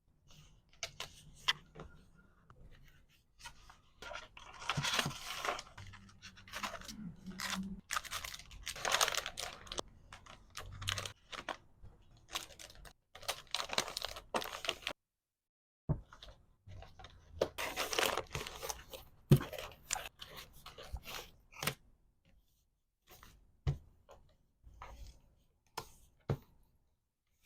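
Order packing by hand: plastic packaging and wrapping tearing and crinkling in several bursts of a second or two, between small clicks and taps of items being handled and set down.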